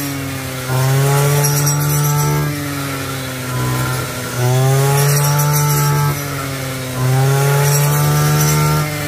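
Petrol brush cutter mowing ripe rice stalks, its small engine revved up three times for about two seconds each, dropping back to a lower speed in between.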